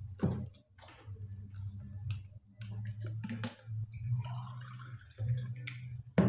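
Close-up eating sounds: wet chewing and mouth smacks, and fingers scooping rice and fried chicken off a plate, giving scattered small clicks and squishes over a steady low hum.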